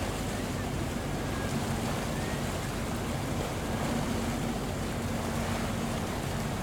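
Boat on the water: a steady low engine drone under the rush of water and wind noise.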